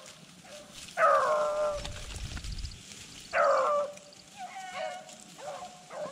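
Rabbit beagles baying: two long bawls that start high and fall, about a second and three and a half seconds in, then a run of shorter, quicker barks. This is the voice of hounds giving tongue on a rabbit's trail.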